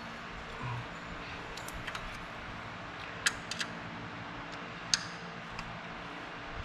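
A few sharp metallic clicks and light taps of a feeler gauge and wrench against the rocker arms of a 24-valve Cummins 6BT diesel while the valve lash is checked, the loudest click about five seconds in, over a steady low hum.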